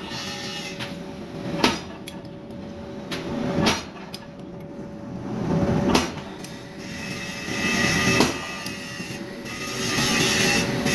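Forging hammer striking steel blanks at a regular pace, a sharp blow about every two seconds, over a steady machine hum.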